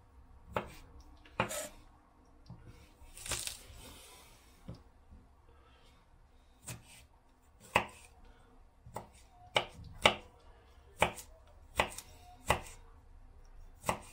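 Kitchen knife chopping garlic on a wooden cutting board: sharp, separate knocks of the blade on the board, spaced out at first and coming more often, about one or two a second, in the second half. A brief scraping sound comes about three seconds in.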